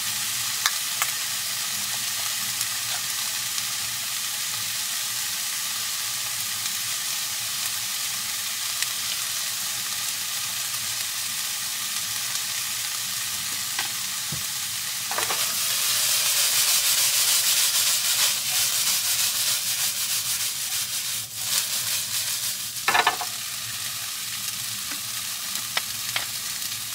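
Pasta sizzling in a frying pan over a portable gas stove's burner, a steady frying hiss that grows louder for several seconds past the middle. A few light clicks, the loudest about 23 seconds in.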